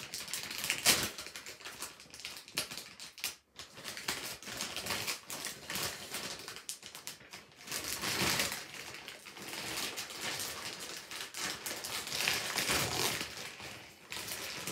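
Plastic poly mailer bag crinkling and rustling in irregular bursts as it is pulled and torn open by hand.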